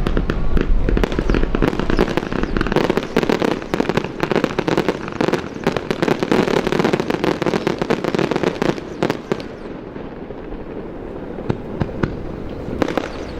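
Aerial fireworks bursting, a dense run of rapid pops and crackles that thins out after about nine seconds, with a few more sharp bangs near the end.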